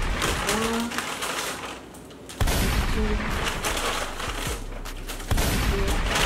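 Paper takeout bags rustling and crackling as foil-wrapped burgers are pulled out of them, in three loud bouts of crinkling: at the start, about two and a half seconds in, and near the end.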